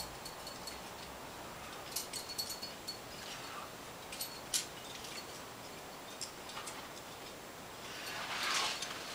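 Metal climbing gear on a harness clinking in short clusters of light clicks and jingles as the climber moves. There is a longer scraping rush near the end.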